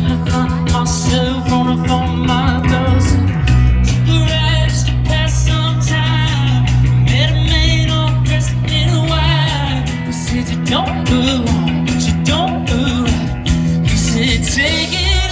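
Rock band playing a song live: sung vocals over electric guitar, bass and drums with a steady beat, the bass line shifting to new notes about 3 s and 9 s in.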